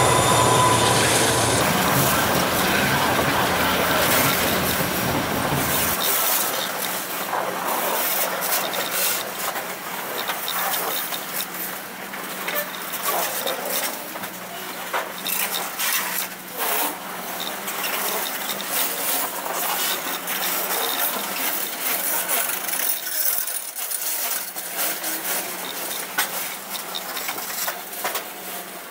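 Metre-gauge freight train of loaded grain wagons rolling past close by: steel wheels clicking and clanking over the rail joints, with many sharp metallic clinks. The low rumble of the diesel locomotives passing in the first few seconds cuts off about six seconds in.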